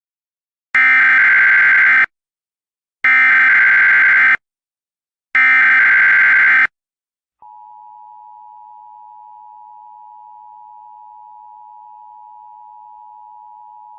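Emergency Alert System (EAS) alert tones. First the SAME header: three identical loud, buzzy digital data tones, each a little over a second long and about a second apart. About 7 seconds in, the steady two-tone EAS attention signal (853 and 960 Hz) starts, much quieter, and runs on.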